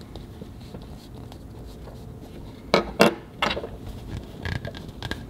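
Three sharp clinks in quick succession about three seconds in, then a couple of fainter taps: a fountain pen with metal trim knocking against hard surfaces as it is handled.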